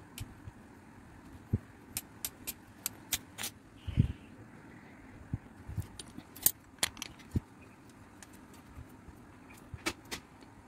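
Metal hand tools being handled: scattered sharp clicks and clacks from a copper-tube bender and a flaring tool's clamp bar and yoke, with one heavier knock about four seconds in.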